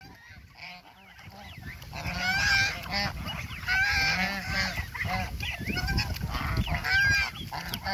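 A flock of domestic swan geese honking and calling over one another, starting faint and building up to loud, dense calling about two seconds in.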